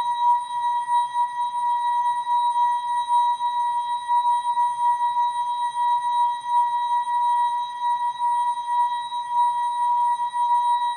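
ASKfm notification sound effect slowed and time-stretched into a long continuous electronic tone: one steady high pitch with fainter overtones above it, fluttering quickly in loudness.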